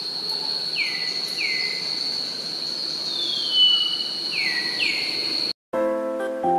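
A steady high-pitched insect drone with a few short falling calls over it. It cuts off suddenly about five and a half seconds in, and music with held notes begins.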